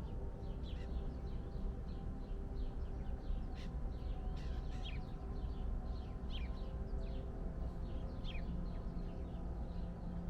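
Small songbirds chirping in a busy, overlapping chorus of quick high notes, with a few louder calls that slide downward in pitch about four, six and eight seconds in, over a steady low rumble.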